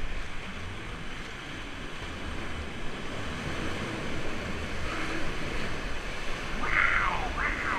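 Steady rushing noise of the raft ride's moving water, with wind buffeting the microphone. Near the end come two short high squeals that fall in pitch.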